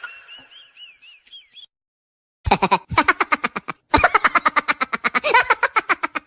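Comedic sound effects: a faint warbling squeak that repeats for about a second and a half, then after a short pause two loud bursts of rapid pulsing buzz, several pulses a second.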